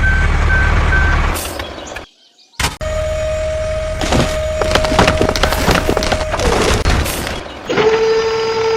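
A vehicle engine running in short edited stretches, with clatter and knocks over it and a steady held tone near the end.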